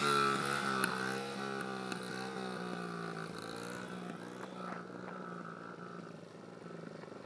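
Small child's dirt bike engine running, its note wavering slightly with the throttle and fading steadily as the bike rides away. Near the end the engine sound starts to grow a little louder again.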